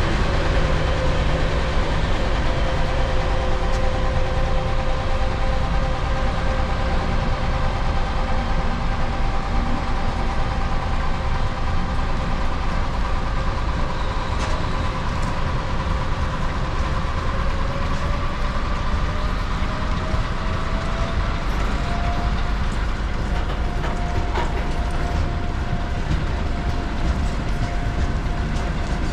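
Freight train rolling past: a steady rumble of wheels on rails, with a high whine that rises slightly in pitch about eighteen seconds in, and a few faint clicks.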